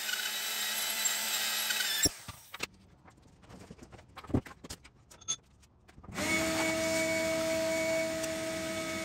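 Electric drill, used to redrill too-shallow anchor holes in a concrete floor. It runs for about two seconds and stops. After a quieter stretch with a few light clicks, it starts again about six seconds in with a steady whine.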